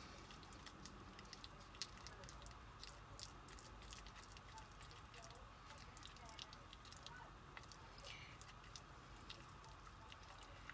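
Stir stick working through a container of thick white paste: faint, irregular squishing with many small clicks.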